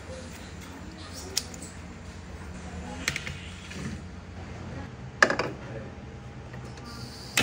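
Kitchen-prep handling noises over a steady low hum: a few sharp clicks and knocks from scissors trimming raw shrimp and from dishes and a frying pan being handled. The loudest is a short clatter about five seconds in.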